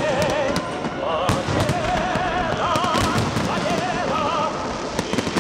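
Aerial fireworks shells bursting with frequent sharp bangs and crackling, over music with long, wavering held notes.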